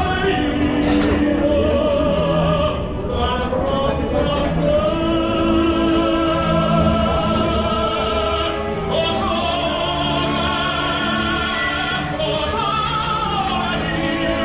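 Operatic-style singing with strong vibrato, long held notes over instrumental accompaniment.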